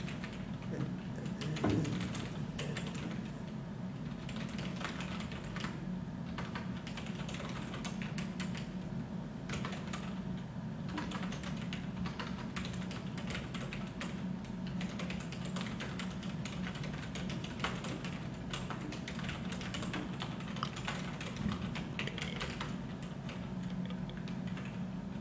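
Typing on a computer keyboard: a continuous, uneven run of key clicks as a paragraph of text is entered, over a steady low hum.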